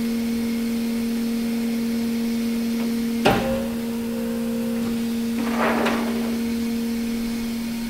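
Coil-bending machine humming steadily, with one sharp metallic clank about three seconds in as its clamp lets go of the bent condenser coil, and a short hiss a couple of seconds later.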